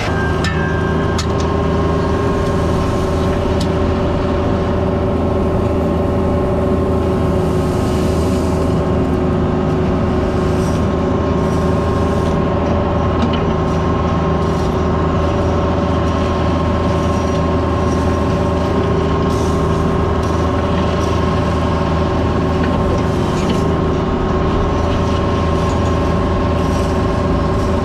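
Diesel engine of heavy equipment running steadily at one constant speed, with a steady whine over a low drone and a few faint ticks.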